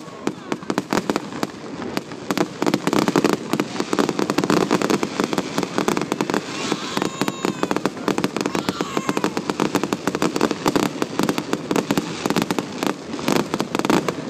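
Aerial fireworks going off in a rapid, continuous barrage of bangs and crackles, getting louder and denser about two to three seconds in.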